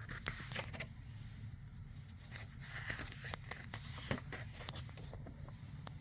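Quiet paper handling noise, likely a picture book's pages being turned: faint rustling and scattered small clicks over a steady low hum.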